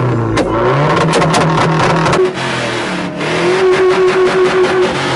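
Car engine revving hard and held at high revs, the pitch dipping and climbing back near the start, with a fast crackling over the top.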